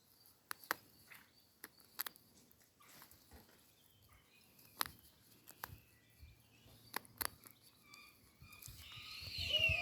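A bird of prey feeding, its beak tearing and crunching at meat and bone in a string of sharp, irregular clicks. Near the end comes a short call that falls steeply in pitch, the loudest sound here.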